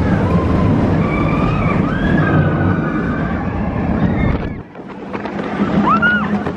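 Roller coaster train running along the track with a loud rumble and wind on the microphone, riders yelling over it. The rumble drops away suddenly about four and a half seconds in, followed by one rising-and-falling yell.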